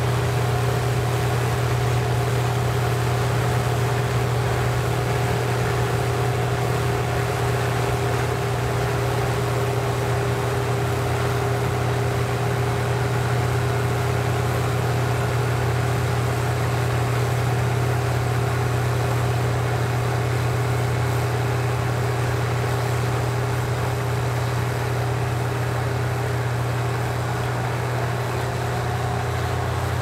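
Case IH 1660 Axial-Flow combine harvesting corn: its diesel engine runs steadily under load, a constant low drone with a steady fainter whine above it.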